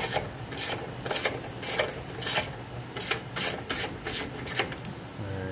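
Socket ratchet on a long extension turning the 13 mm strut-top mount nuts: a short rasp of pawl clicks with each return swing, a little under two a second at first and quicker in the second half.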